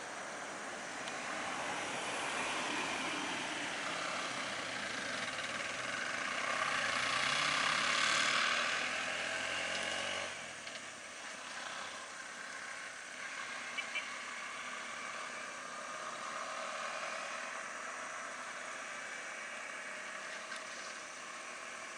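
Road vehicle engines running, growing louder over the first eight seconds or so, then dropping suddenly about ten seconds in to a quieter, steady running sound.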